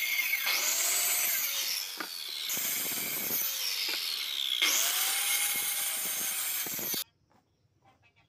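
Handheld electric circular saw cutting across wooden boards. Its motor whine climbs as it spins up, sags while the blade is in the wood, and climbs again for a second cut. The sound cuts off suddenly about seven seconds in.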